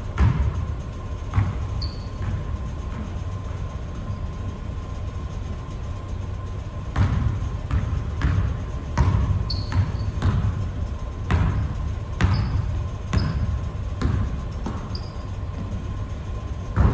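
Basketball bouncing on a hardwood gym floor in irregular bounces, most of them in the second half, with short sneaker squeaks on the court, over a steady low hum in the hall.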